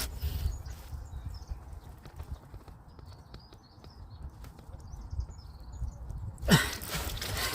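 Irregular light clicks and knocks of hand tools and metal parts being handled, over a low rumble, with one louder knock about six and a half seconds in.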